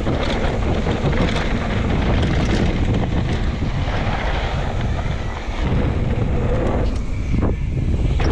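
Wind rushing over the camera microphone as a mountain bike descends a trail, over a steady low rumble.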